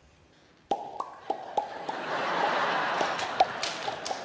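Sharp hand slaps of a Hungarian folk slapping dance, hands striking thighs, chest and boots. They start suddenly under a second in after near silence, come as single slaps a few tenths of a second apart, then keep going irregularly as a steady wash of noise rises under them about halfway through.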